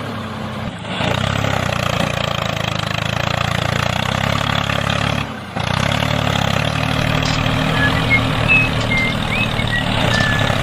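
An engine running steadily at idle, with a brief drop about half a second in and again about five and a half seconds in. A few short chirps sound near the end.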